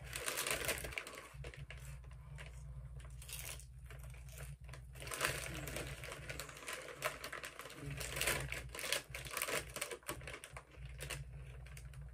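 Doritos tortilla chips being crunched while chewing and the plastic chip bag crinkling under a hand, a dense run of small crackling clicks.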